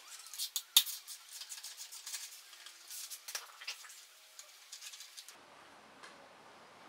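Hand ratchet with a hex socket clicking in quick, uneven runs, mixed with sharper metal taps of tool on bolt. The clicking stops suddenly about five seconds in.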